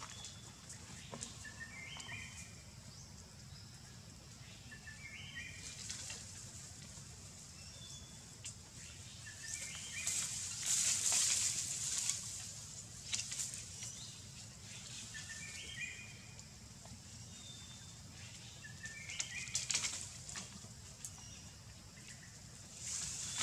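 A bird repeats a short song phrase of a few stepped notes about every four seconds, over a steady low hum. Short bursts of hissing noise come and go, the loudest about ten seconds in.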